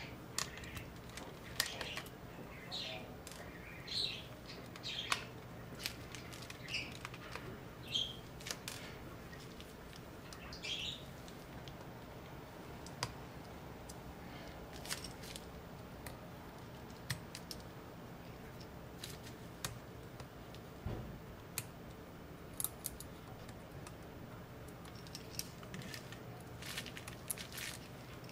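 Faint clicks and ticks of small screwdrivers and parts being handled while a MacBook Air is taken apart, over a steady low hum. A few short high squeaks come in the first ten seconds or so.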